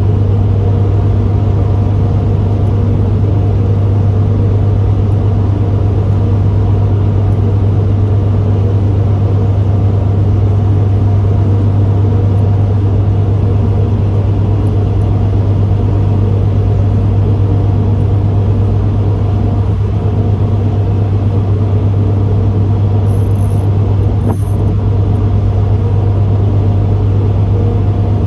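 Engine on a fishing boat running at a steady pace: a loud, even, deep hum with overtones. A couple of faint high ticks sound about 23 seconds in.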